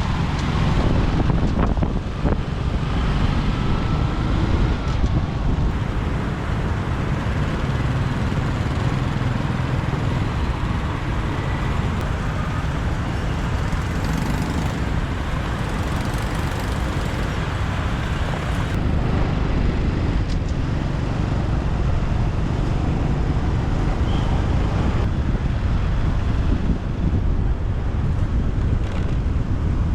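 Steady road noise from a motorbike riding through city traffic: the hum of engines and tyres, with a heavy low rumble that stays even throughout.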